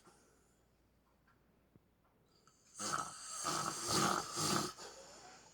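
A man snoring: after a quiet breath, one loud, rattling snore about three seconds in that lasts about two seconds.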